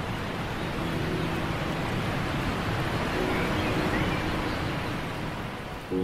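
Steady rushing water noise from a waterfall, with a few faint held music notes under it.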